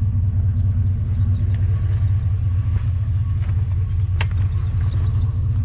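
Truck engine idling with a steady low rumble, with one sharp click about four seconds in.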